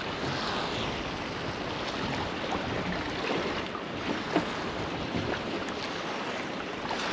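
Wind on the microphone and choppy water of tidal overfalls around a small drifting boat, a steady rushing noise with a short knock about four seconds in.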